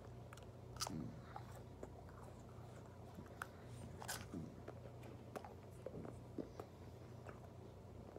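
Mouth sounds of a person eating frozen ice pops: scattered wet smacks, sucks and clicks, the sharpest about a second in and about four seconds in, over a faint steady low hum.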